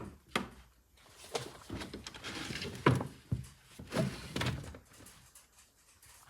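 Several sharp knocks and thuds with rustling between them; the loudest knock comes about three seconds in.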